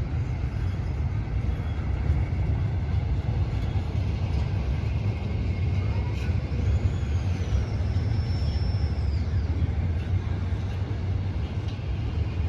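Freight train cars rolling past on the rails, with a steady deep rumble and occasional light clanks, and a thin high squeal for about three seconds midway.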